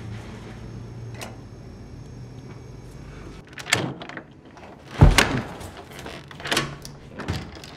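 A door chain lock being slid and unhooked: a few sharp metallic clicks and rattles, the loudest about five seconds in. They follow a low steady hum that stops a little after three seconds in.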